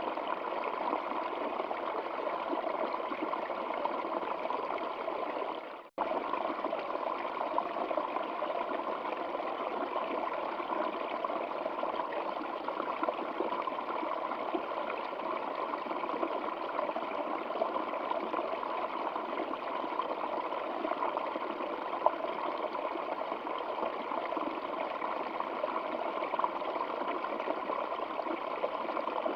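Water of a stream running steadily. About six seconds in, the sound fades almost to silence and then cuts straight back in at full level, a break in the recording.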